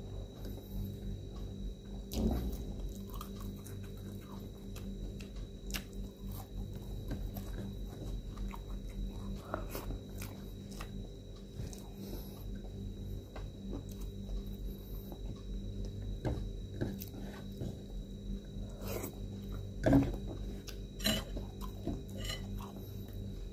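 A person chewing and smacking their lips close to the microphone while eating rice and shrimp by hand, with scattered short wet clicks. A sharper smack comes about two seconds in and the loudest one a few seconds before the end.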